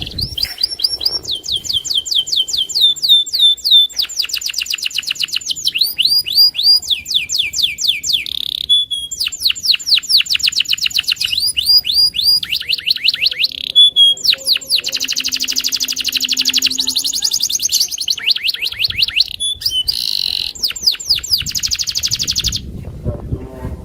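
Domestic canary singing a long, continuous song: runs of fast repeated trilled notes, one phrase after another with only brief pauses.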